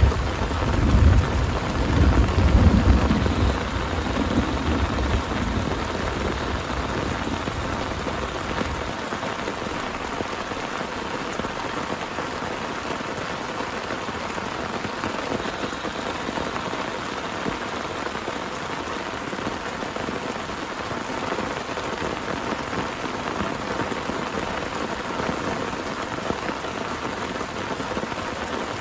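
Heavy rain falling steadily on a surface, with a low thunder rumble that dies away over the first several seconds.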